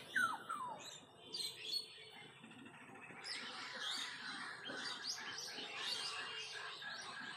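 Small birds chirping: two quick falling whistles right at the start, then from about three seconds in a busy chorus of many overlapping chirps.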